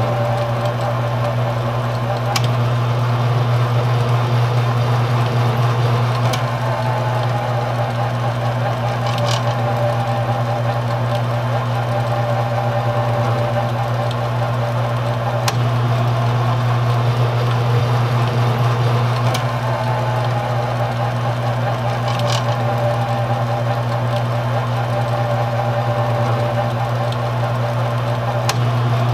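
Grizzly G0765 mini lathe running steadily with a loud hum from its motor and gear train while a threading tool cuts a multi-start thread in an aluminum bar. A fainter whine above the hum slides in pitch twice, and a few light ticks sound through it.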